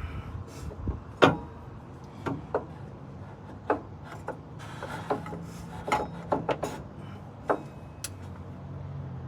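Irregular metal knocks and clanks, about a dozen, as a heavy truck alternator is handled and shifted against its mounting bracket while being lined up, over a steady low hum.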